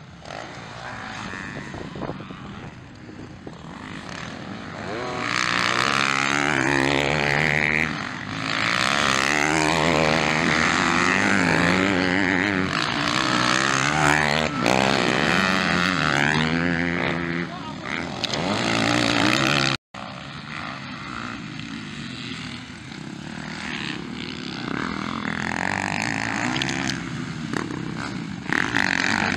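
Several motocross bikes revving hard and shifting as they pass, their engine pitch repeatedly climbing and dropping. The sound is loudest through the middle and breaks off for an instant about two-thirds of the way in.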